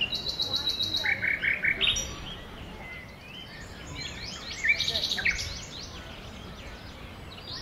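Small songbirds singing and chirping among the trees: a quick run of high repeated notes at the start, four lower notes about a second in, and a burst of varied chirps about four to five seconds in.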